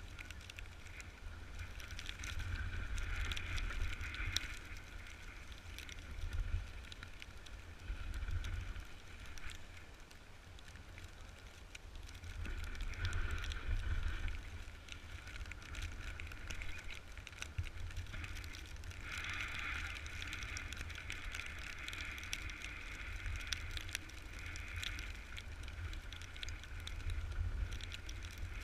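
Snowboard sliding and scraping over snow, swelling and easing with the turns, under a heavy rumble of wind on the microphone.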